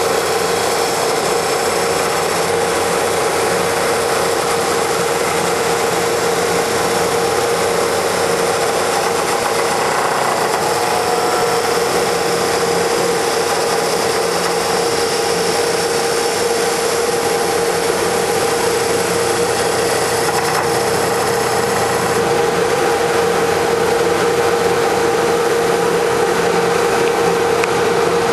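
Hydraulic automatic copy wood lathe running: a steady machine hum with a constant tone and a broad hiss, the high hiss thinning about three-quarters of the way through.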